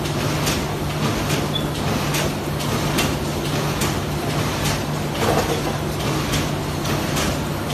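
Automatic corrugated-box die-cutting machine running: a steady low hum with sharp mechanical clacks repeating about twice a second as it cycles.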